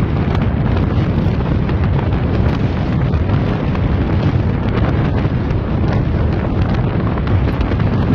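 Heavy wind buffeting the microphone of a fast-moving Mustang convertible, with a steady low rumble from the car and the road and frequent small crackles.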